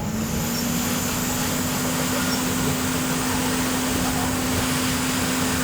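A small electric blower starts up and runs steadily: an even rushing noise with a steady low hum.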